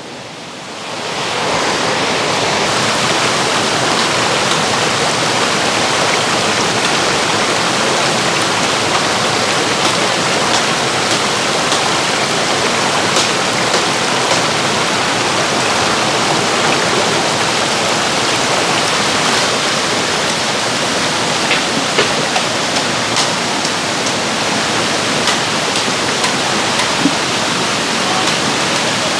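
Waterfall: a steady rush of falling water that swells up over the first second or two and then holds level, with a few faint clicks scattered through.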